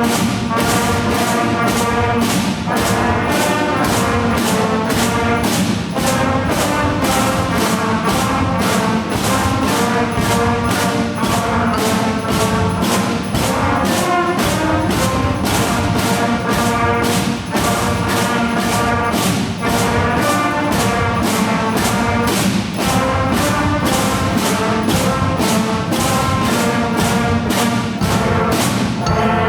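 A student band playing festive music led by brass, over a steady beat of about two strokes a second.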